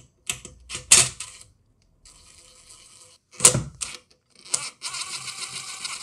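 DeWalt cordless drill backing screws out of a plastic bracket: the motor whirs for about a second, stops, then whirs again for nearly two seconds near the end. Sharp clicks from the bit and the plastic part come before each run, the loudest about a second in and halfway through.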